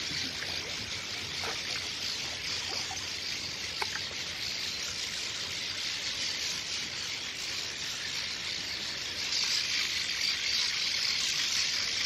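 A nesting colony of cliff swallows twittering, their many high calls merging into a steady, dense chatter that grows a little louder in the last few seconds.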